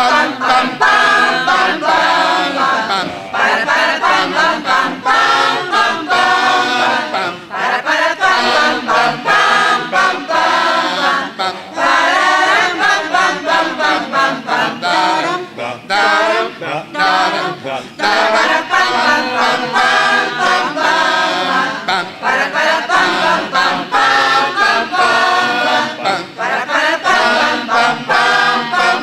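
Mixed choir of women's and men's voices singing a cappella.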